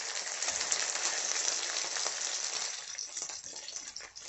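Patties sizzling and crackling in hot oil in a frying pan as they are turned over; the sizzle eases a little after about three seconds.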